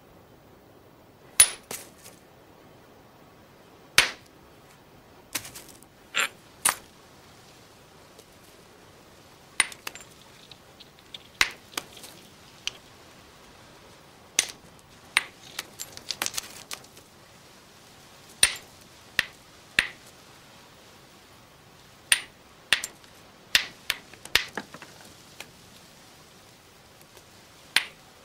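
Stone knapping: a hammerstone striking a stone core, making about twenty sharp clicking chinks with a brief ring. They come at irregular intervals, some in quick pairs, with a run of lighter rapid taps about halfway through.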